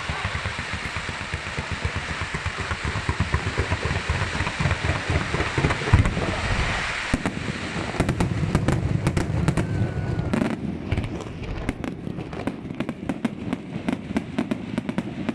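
Fireworks display: a dense, rapid run of bangs and crackling pops, with one louder boom about six seconds in.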